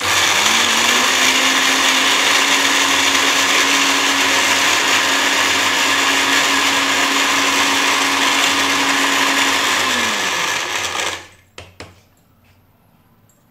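Electric mixer grinder running at full speed, grinding broken biscuits to powder in its steel jar. The motor spins up at the start, runs steadily for about ten seconds, then winds down and stops, followed by a couple of faint clicks.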